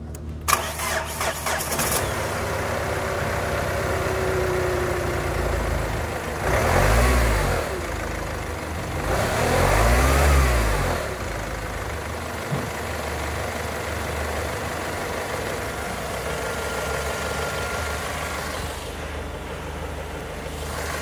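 Mazda MZR-CD 2.2 four-cylinder turbo-diesel cranked by the starter and catching after about a second and a half, then idling. It is revved up and back down twice before settling to a steady idle.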